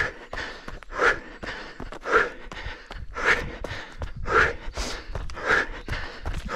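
A runner's hard breathing from exertion while running, close to the microphone: loud gasping breaths about once a second.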